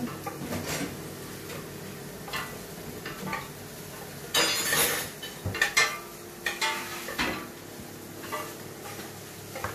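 A utensil stirring chopped onions in a frying pan, scraping and clinking against the pan, with scattered knocks of kitchen utensils and a louder burst of noise about four and a half seconds in.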